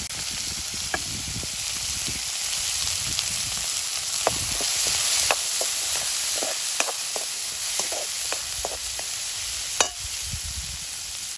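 Chopped shallots sizzling steadily in hot oil in a large iron wok, stirred with a wooden spoon, with scattered pops and crackles.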